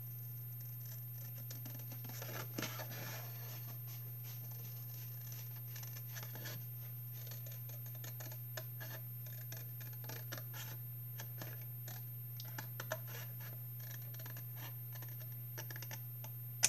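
Scissors cutting through embossed cardstock: a run of soft snips and paper scraping, over a steady low hum.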